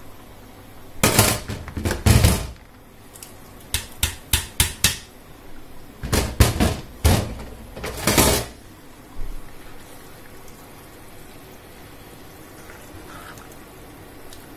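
Cookware clattering and knocking: bursts of clinks and knocks about a second in, five quick taps around four seconds, and more clatter from about six to eight seconds.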